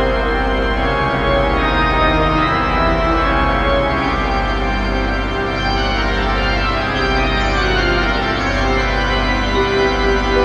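Organ music playing sustained chords.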